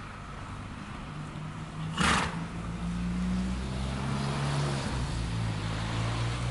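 A motor engine running steadily nearby, its low hum drifting slightly in pitch, with a short loud rushing noise about two seconds in.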